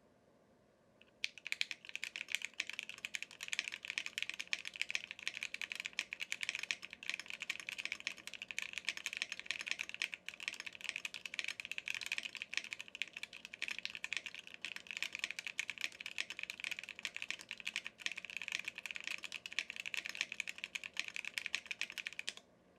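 Fast continuous typing on a Cannonkeys Savage 65 mechanical keyboard with lubed Gateron CJ linear switches and NicePBT keycaps, dampened with polyfill and toolbox liner to cut its hollow sound. The typing starts about a second in and stops suddenly just before the end.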